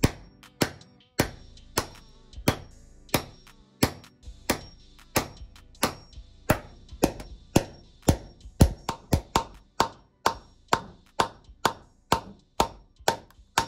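Big hammer driving old-fashioned hand-cut nails through a wooden bottom plate into a concrete floor. It makes a steady run of sharp, ringing strikes, about two a second at first, quickening to about three a second in the second half.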